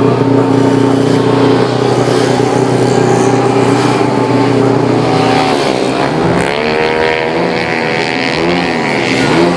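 Race-built 130cc single-cylinder engine of a Yamaha Mio J scooter being tuned, running at a steady high rev for about five seconds, then dropping and revved up and down several times in quick blips.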